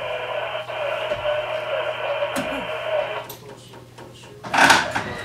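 Tinny sound from a loudspeaker at a stopped train, cutting off abruptly about three seconds in, over a steady low hum. A short, louder burst of sound comes near the end.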